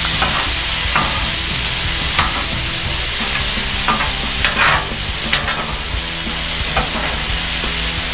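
Bacon, jalapeño slices and mushrooms sizzling steadily on a hot flat-top griddle, with metal spatulas scraping and clicking against the griddle now and then as the vegetables are turned.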